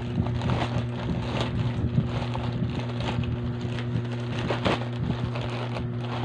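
Plastic courier pouch crinkling and rustling as it is handled and pulled open by hand, in irregular crackles over a steady low hum.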